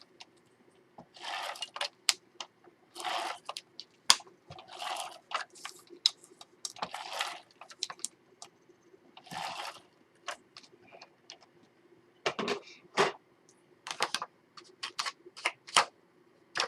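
Paper and chipboard being handled at a craft table: several short, half-second rustles of paper rubbing and sliding, with scattered light clicks and taps in between.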